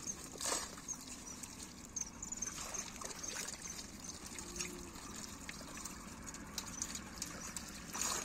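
Shallow water trickling and splashing as hands work through a fishing net and dip plastic baskets to sort small live fish, with scattered small splashes and one sharper splash about half a second in.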